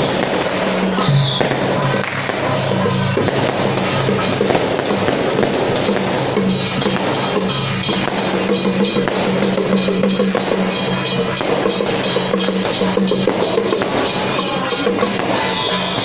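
Temple-procession music with drums, over a dense, continuous crackle of firecrackers.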